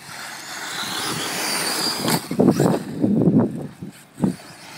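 Radio-controlled car running on the dirt track, its high whine and hiss rising over the first two seconds as it speeds up or comes closer, followed by a run of loud, irregular rumbling bursts.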